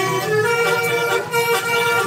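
A bus's 'telolet basuri' musical horn playing a tune: several horn tones sounding together, changing note every fraction of a second.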